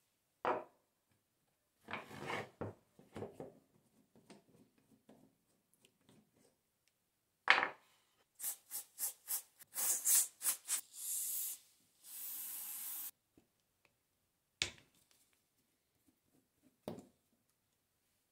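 An aerosol can with a straw spraying onto a rusty hand drill chuck in a run of short hissing bursts, then one longer hiss of about a second. Around it, metal tool parts are knocked and handled on a wooden bench, with one sharp knock just before the spraying and two more later.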